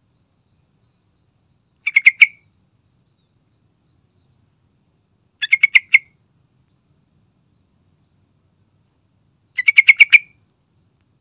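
Yellow-vented bulbul calling: three short phrases, each a quick run of five or six notes, about two seconds in, near the middle and near the end.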